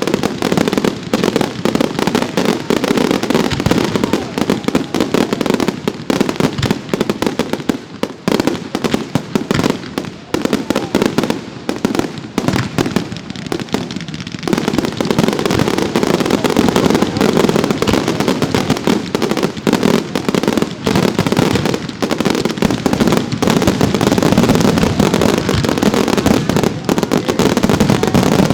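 Professional fireworks display: a dense, continuous barrage of bursts and crackling reports. It thins out a little in the middle, then thickens again suddenly about halfway through.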